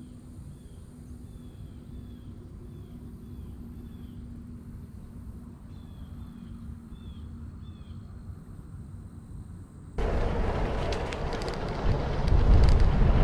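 A bird calls in two bouts of short, quick downslurred chirps over a low, steady background. About ten seconds in this cuts abruptly to loud rushing noise, which grows louder about two seconds later.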